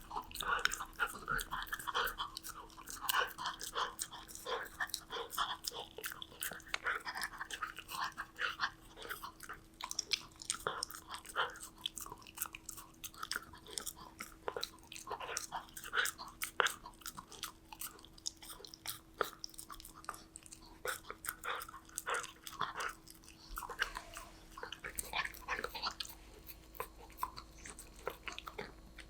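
Golden retriever puppy chewing a treat, a steady run of quick, irregular crunches and bites.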